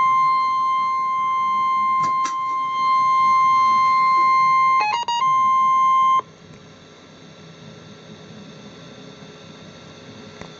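NOAA Weather Radio's 1050 Hz warning alarm tone sounding as one long, steady, shrill beep, marking the start of an emergency alert broadcast. A few short beeps of other pitches cut in about five seconds in. The tone stops about six seconds in, leaving faint radio hiss.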